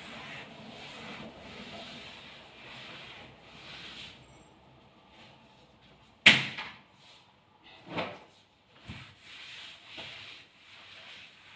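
Wet mop swishing back and forth over a wooden floor in quick, even strokes for the first few seconds. Then a loud sharp knock about halfway through and a few softer knocks after it, as the mop bumps against the wall and skirting.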